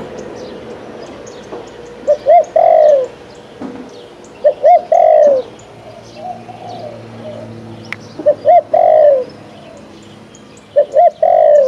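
Spotted dove cooing. It gives a phrase of two short notes and a longer falling note, four times, about every two to three seconds, with a fainter coo between. This is the call of a caged decoy dove kept for its cooing. Faint high chirps of small birds sound behind it.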